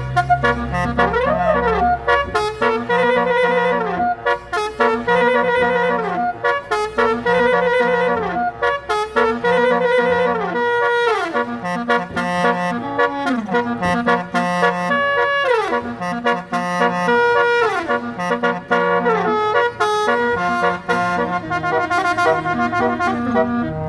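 A basuri, the electronic musical horn fitted to Indonesian buses, plays a song melody in brassy, saxophone-like tones. Notes slide up and down in a phrase that repeats about every two seconds.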